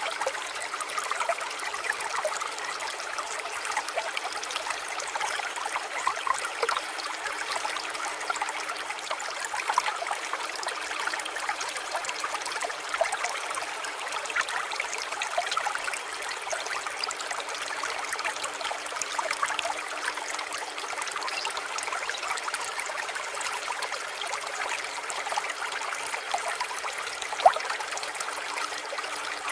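Small stream of water trickling and bubbling steadily, with one brief sharp tick near the end.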